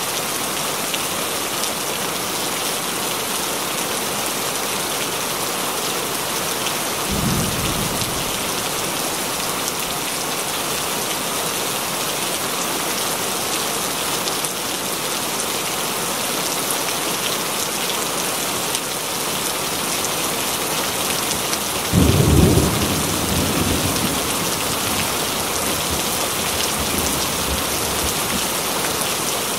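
Steady rain with two thunder rumbles. A short rumble comes about seven seconds in, and a louder clap about twenty-two seconds in rolls on for a few seconds.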